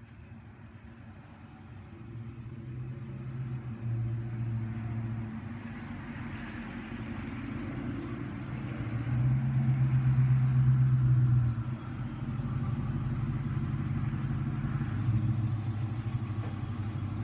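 Car exhaust through Jones Exhaust Full Boar Flow Deflector performance mufflers as the car drives up and pulls in: a low engine rumble that grows louder as it approaches, is loudest about ten seconds in, then holds steady as the car rolls to a stop.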